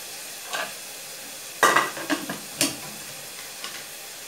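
A steady sizzling hiss from a pan on the stove, broken by a few sharp knocks and clatters of kitchen utensils and pots. The loudest clatters come in a quick cluster about one and a half to two and a half seconds in.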